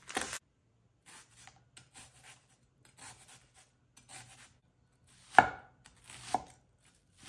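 Chef's knife slicing and then mincing a shallot on an end-grain wooden chopping block: a sharp knock at the start, then unhurried knife strokes against the wood at roughly two a second, with two louder chops near the end.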